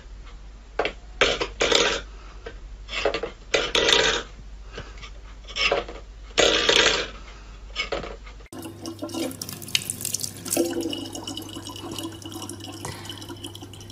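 A small metal bowl scraping and rattling on a wooden floor as a cat paws at it, in a string of short, irregular scrapes. After a cut, a thin stream of water trickles from a tap into a plastic bottle over a low steady hum.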